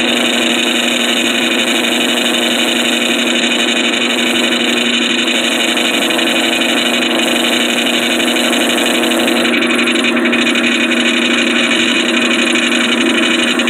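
Wood-Mizer portable sawmill's engine running steadily, an even drone that does not change.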